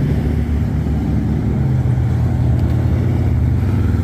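Road traffic: cars driving across a railroad crossing, a steady low rumble of engines and tyres.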